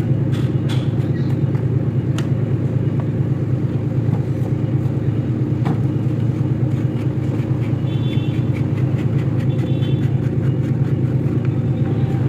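Steady low engine drone, with a few light clicks of parts being handled.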